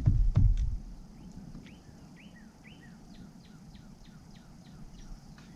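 A songbird calling in a steady series of short, down-slurred chirps, about two a second. It starts after a few low knocks and bumps in the first half second.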